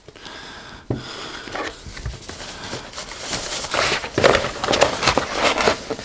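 A cardboard retail box being opened and its packaging handled: rustling, sliding and many small knocks of cardboard and plastic, busier and louder in the second half.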